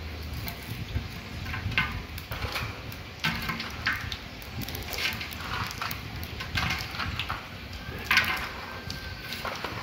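Whole spices (cardamom, mace and fennel) crackling and sizzling in hot coconut oil and ghee in a large cooking pot. Irregular pops go on throughout over a low steady rumble.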